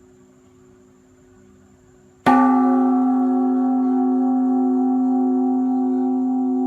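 Great Buddhist temple bell (đại hồng chung) struck once about two seconds in: a sudden loud strike, then a deep ringing of many tones that fades slowly. Before the strike only a faint low hum is left ringing.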